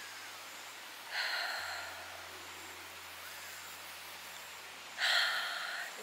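A woman's deep, audible yoga breaths, two of them about four seconds apart, the second one louder.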